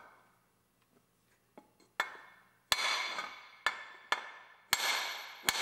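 Hammer blows on the shaft of a 1993 Mustang GT's water pump, driving the shaft and impeller back into the housing after a front-end crash pushed them back. Six sharp strikes at uneven intervals start about two seconds in, several ringing briefly.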